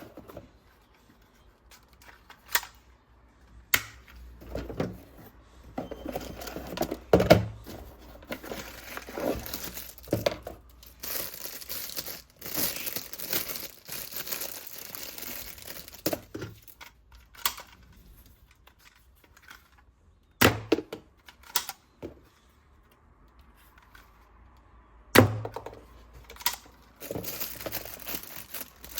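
Toy packaging being unboxed: plastic and cardboard crinkling and tearing, broken up by sharp clicks and thunks of hard plastic pieces being handled and set down.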